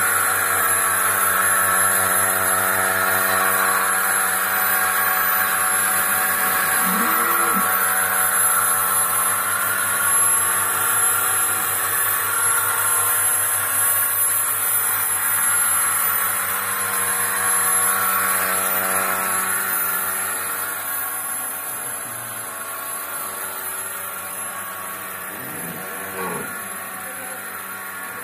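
Milking machine's belt-driven vacuum pump running steadily: a continuous mechanical hum with a fine, even pulse. It grows fainter over the last several seconds.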